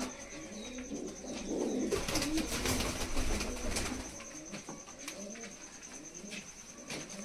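Domestic pigeons cooing repeatedly in a small loft, with a flurry of wing flapping and scuffling about two seconds in as one bird is caught by hand from its perch.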